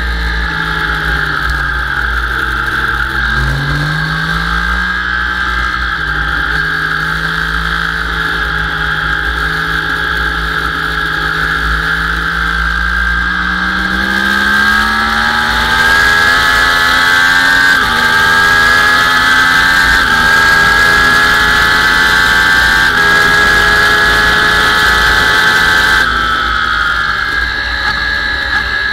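Sport motorcycle engine heard from on board during a track lap: the revs climb out of a corner and step down at gear changes about 6 and 18 seconds in, then run high down the straight with wind rushing past. The revs drop about 26 seconds in as the bike slows for the next corner.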